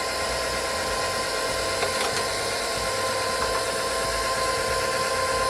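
Steady hum and whir of a small electric appliance motor or fan, even and unchanging throughout.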